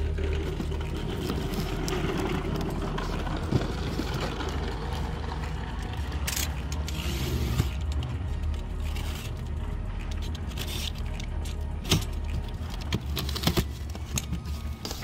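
Cardboard boxes being handled and packing tape slit open with a small blade, giving scattered sharp clicks and scrapes over a steady low rumble.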